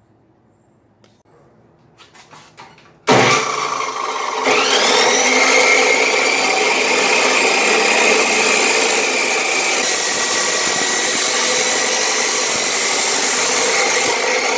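A few light clicks, then an abrasive chop saw switches on loudly about three seconds in, and its cut-off wheel grinds steadily through a steel bar. A high whine rises in pitch about a second after the start and then holds.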